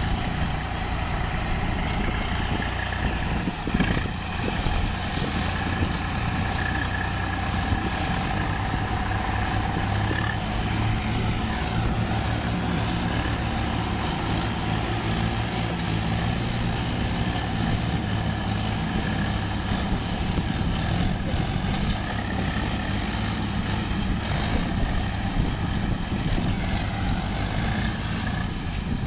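Swaraj diesel tractor engines running steadily under heavy load, hauling a sand-loaded trolley through mud and water.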